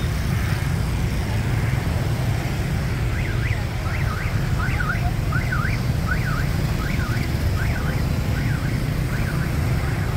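Steady rumble of dense motorbike and car traffic. From about three seconds in, an electronic alarm warbles up and down in pitch about twice a second, growing fainter near the end.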